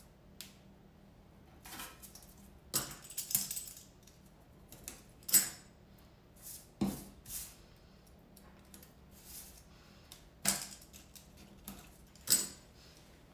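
Hands handling cardstock cake-topper pieces and a small handheld tool on a wooden tabletop: irregular small clicks, taps and paper rustles, with a couple of sharper taps about five seconds in and near the end.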